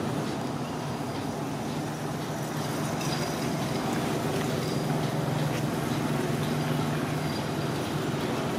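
Steady low rumble of a running motor, growing slightly louder about four seconds in.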